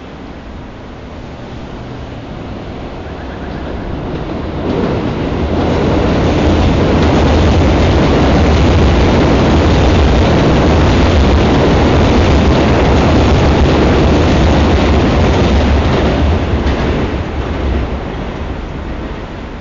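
Train crossing an elevated steel railway structure: a deep rumble and clatter that builds over about five seconds, stays loud for about ten, then fades away.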